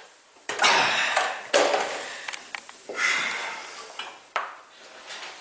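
Glassware and dishes clinking and knocking as they are handled on a small wooden table, in several separate bursts.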